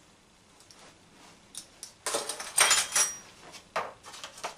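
Metal measuring spoon clinking and clattering against the stainless steel mixer bowl and the countertop for about a second, starting about two seconds in, with a bright ringing edge; a couple of light knocks follow near the end.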